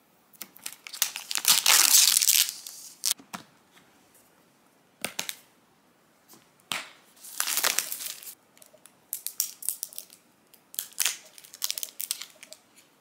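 Thin plastic protective film crinkling as it is peeled off a tablet case, loudest about two seconds in, with a second crinkly stretch about seven seconds in. Short plastic clicks and rustles follow as an iPad is fitted into a plastic folio case and the accessories are handled.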